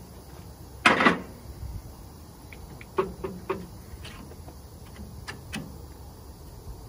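Metal clunks and clicks as a 1963 John Deere 2010's rocker arm shaft assembly is rocked by hand and worked loose from the cylinder head: one heavy clunk about a second in, then three quick light clicks around three seconds and two more a little past five seconds.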